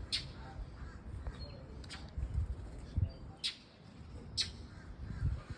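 Short, harsh bird calls, four sharp ones spaced about a second or more apart, from birds harassing a dog, over a low rumble with a few thumps.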